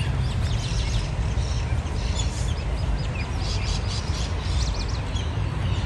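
Small birds chirping and calling in quick, scattered notes over a steady low rumble of wind on the microphone.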